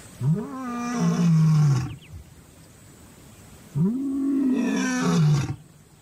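Lion roaring: two long moaning roars, each rising and then falling in pitch, the second following the first after a pause of about two seconds.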